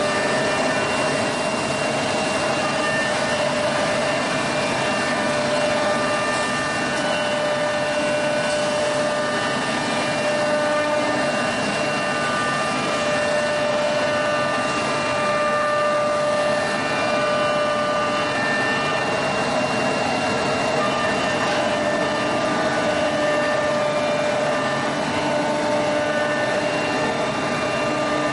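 Automatic-loading CNC router running: a steady machine hum with a constant whine, unchanging in level.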